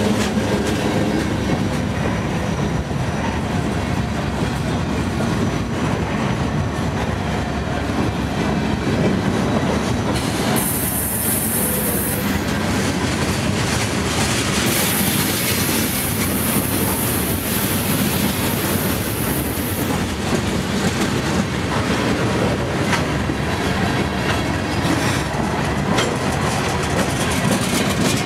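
CSX freight train's covered hoppers and tank cars rolling past close by, a steady rumble with wheels clicking over the rail joints. A high-pitched wheel squeal rises over it twice, briefly about ten seconds in and again for several seconds a little later.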